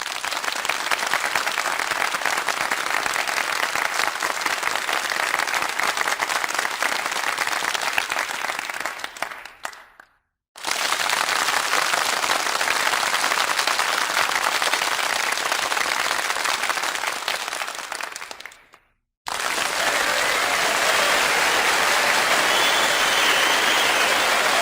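Crowd applause: three separate stretches of many people clapping. The first two start suddenly and fade out, each followed by a brief silent gap, and the third starts suddenly about two-thirds of the way in.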